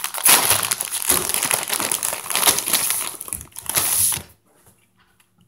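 A plastic snack bag of crunchy hot Cheetos crinkling as it is handled and rummaged through, stopping suddenly about four seconds in.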